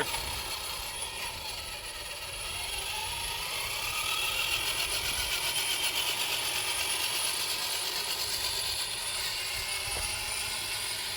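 Rebuilt RC truck's dual electric motors and geared transmission whining while driving in second gear; the whine rises in pitch a couple of seconds in as it speeds up, then holds steady. The gear noise is what the owner calls a little geary and puts down to the three big pinion gears of the dual-motor mount.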